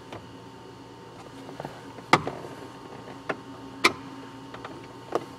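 A few sharp clicks and taps from a screwdriver on the centre console's screws and plastic trim as the screws are snugged down, the two loudest about two and four seconds in, over a faint steady hum.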